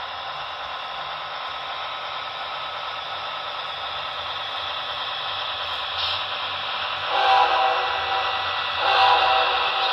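Model diesel locomotive's onboard sound running a tinny, hissy engine sound with a faint low rumble, then two short horn blasts, about 7 and 9 seconds in.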